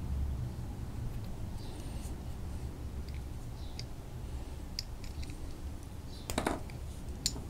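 Faint crinkling and small ticks of Teflon thread-seal tape being pulled off its roll and wound around the threads of a brass hose-bib faucet. A short louder crackle comes about six and a half seconds in, and a sharp tick near the end.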